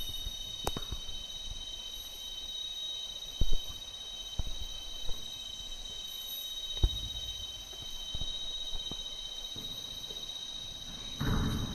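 Insects droning steadily at a high pitch, with a handful of scattered knocks and thumps and a brief rustle near the end.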